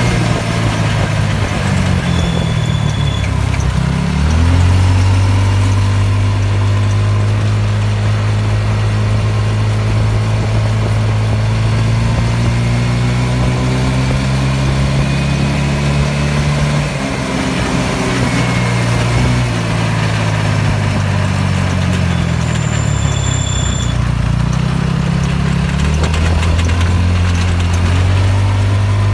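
Go-kart engine running as it drives along the street, mostly at a steady pitch, dropping in pitch as it eases off early on and again about two thirds of the way through, then settling. Wind and road noise run underneath.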